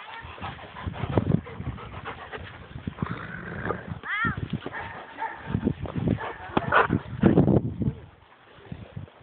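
Hungarian vizslas playing and jostling, giving short barks and yelps, with one high whine that rises and falls about four seconds in.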